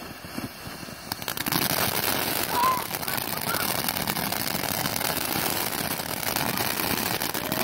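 A lit consumer firework going off, starting about a second in with a loud hissing spray of dense crackling that keeps going.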